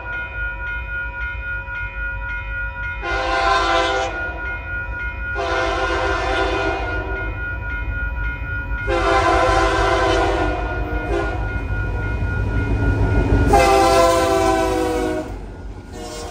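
Union Pacific freight locomotive's multi-note air horn sounding four long blasts and one short one as the rock train approaches, over the low rumble of its diesel engines. The rumble builds toward the last blast and drops off sharply near the end as the locomotives pass and the freight cars roll by. Faint steady high tones ring underneath.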